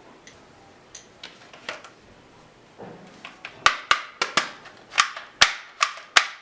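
Toy gun play: a few faint plastic clicks, then a quick run of about nine loud, sharp snaps over the last three seconds, each with a short ring.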